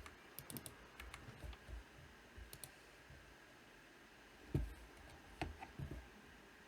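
Faint, scattered clicks of a computer keyboard and mouse being used, with a few louder knocks around two-thirds of the way through.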